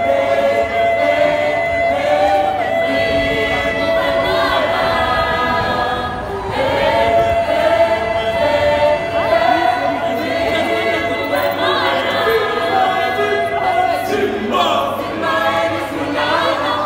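A choir singing, several voices together in a steady flowing song.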